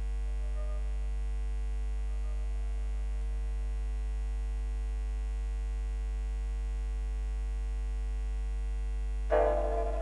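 Steady low electrical hum under faint background music; about nine seconds in, louder instrumental music comes in suddenly.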